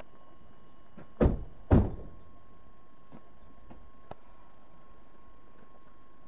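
Two heavy thumps about half a second apart, a little over a second in, over a faint steady hiss with a thin steady tone.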